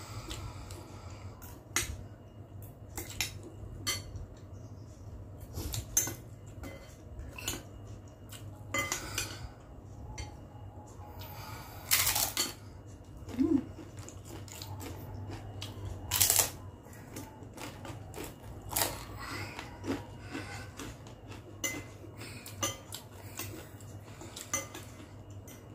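A metal spoon and fork clink and scrape against a glass bowl of noodles and meatballs, with short clicks scattered throughout. Near the middle come a couple of louder crunchy bites into a fried wonton cracker.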